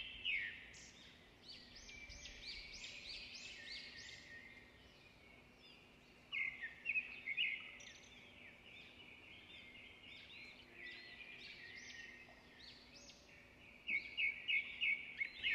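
A songbird singing: a steady stream of quick, high chirps and trills, with louder runs of sharp repeated notes about six seconds in and near the end.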